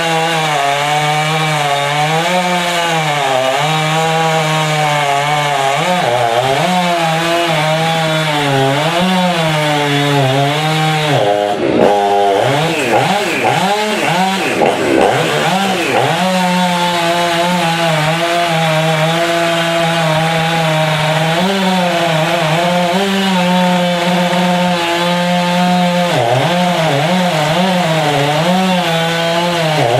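Large two-stroke chainsaw cutting wood, its engine pitch sagging and recovering under load. About 11 seconds in, for several seconds, the engine revs rapidly up and down. The chain is admittedly dull.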